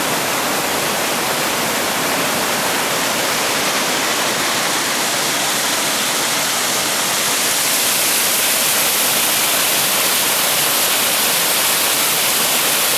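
Mountain creek cascade rushing steadily over rocks, running with much more water than usual. It grows a little louder about halfway through.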